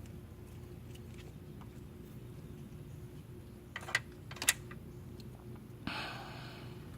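Hand tools and wires being handled during alternator wiring work: a few sharp clicks about four seconds in, then a short scraping rustle near the end, over a low steady hum.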